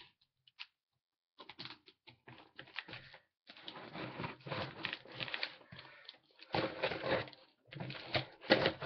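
A knife cutting open a taped cardboard box: irregular scratchy crackles and clicking scrapes as the blade runs through the tape. It starts about a second and a half in and is loudest in two stretches near the end.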